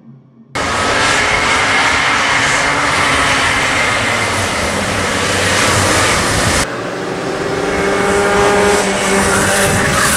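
A pack of racing kart engines running at high revs, many overlapping pitches rising and falling as the karts race. The sound comes in abruptly about half a second in, and drops in level and loses its top about two-thirds through.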